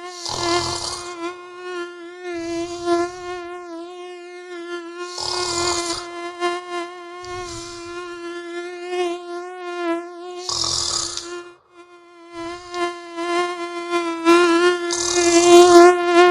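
A mosquito's whine, wavering slightly in pitch, over a person's slow, regular snoring, one snoring breath every two to three seconds. The whine breaks off briefly a little past the middle.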